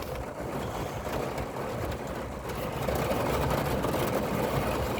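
Steady rain falling, an even hiss with a low rumble underneath that grows a little louder about three seconds in.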